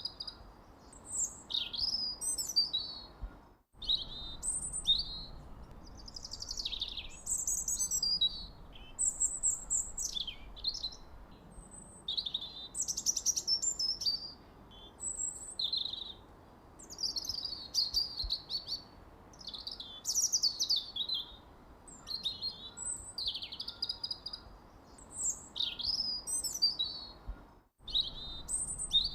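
Songbirds chirping and singing in quick, high, warbling phrases that follow one another with short pauses, over a faint steady background hiss. The sound drops out completely for an instant about four seconds in and again near the end.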